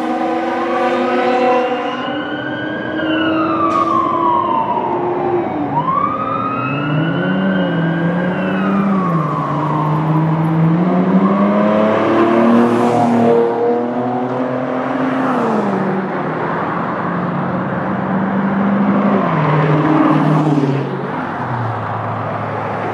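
Fire truck siren wailing in long rising and falling sweeps. From about seven seconds in, a lower siren tone rises and falls underneath it, alongside the noise of passing traffic.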